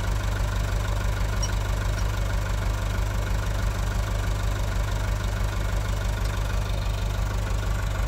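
Massey Ferguson 440 4×4 tractor's diesel engine running at a steady idle, an even low drone that does not rise or fall.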